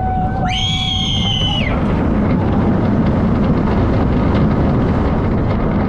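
Intamin hydraulic launch coaster train running at speed, heard from the front seat: a steady rush of wind and track rumble. Over it, riders scream for the first couple of seconds, a held lower cry and then a high-pitched shriek.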